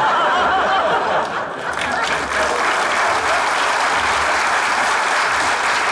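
Studio audience applauding: dense, steady clapping that stays level throughout.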